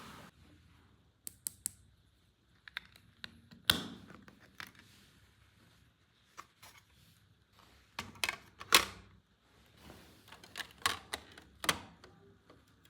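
Irregular clicks, taps and knocks of hard plastic toy parts being handled, with light rustling in between; the sharpest knocks come about four seconds in and again about nine seconds in.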